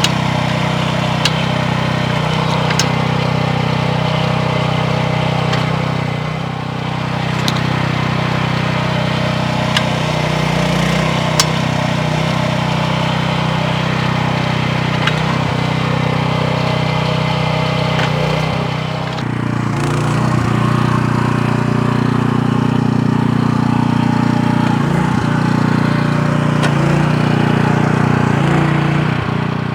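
Ducar 0.8-ton mini excavator's 9.5 horsepower engine running steadily under hydraulic work. Its note dips briefly about six seconds in and rises to a higher, louder pitch about nineteen seconds in. A few sharp clanks are heard along the way.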